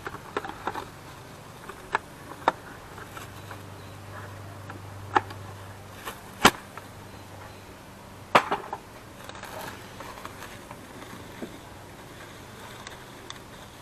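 A few sharp, scattered clicks and knocks of hand tools and parts being handled on top of the engine, with a faint low buzz for a few seconds in the middle.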